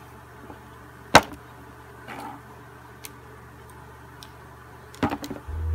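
Canvas sneakers being handled and lifted off a wooden tabletop: one sharp knock about a second in, a few light taps and rustles, and a cluster of knocks near the end, followed by a short low hum.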